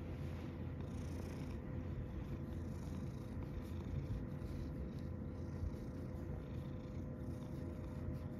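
Domestic cat purring steadily while being scratched under the chin, very close to the microphone.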